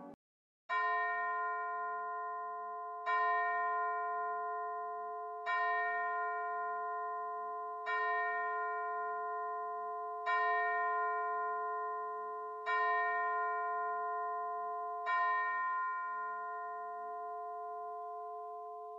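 A single bell struck seven times at an even pace, about every two and a half seconds, each stroke ringing on at the same pitch and overlapping the next. The last stroke fades away slowly.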